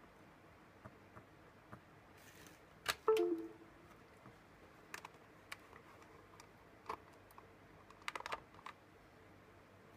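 Scattered light clicks and taps, with a louder click about three seconds in followed by a short two-note falling computer chime, then a quick run of clicks near the end. The chime comes as the flight controller drops off the USB port while its boot pins are bridged.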